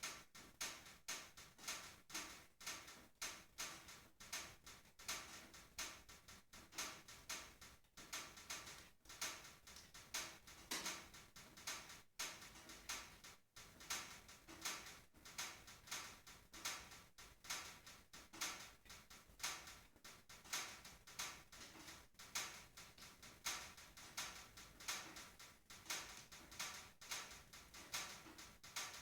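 Firewood burning in a wood stove's firebox, crackling with irregular sharp pops and snaps, a few each second.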